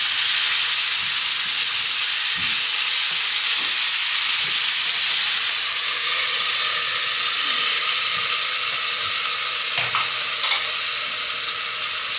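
Food frying in hot oil in a skillet: a loud, steady sizzling hiss, with a couple of light knocks about ten seconds in.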